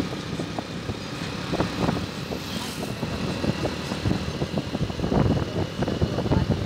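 Steady rumbling travel noise with irregular crackling, heard from a road vehicle moving alongside a rake of rolling ballast hopper wagons, with a brief hiss about two and a half seconds in.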